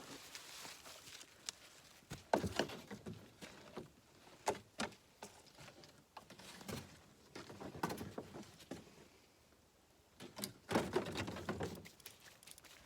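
Scrap lumber being handled and tossed: scattered knocks and short bursts of wooden clatter, loudest near the end.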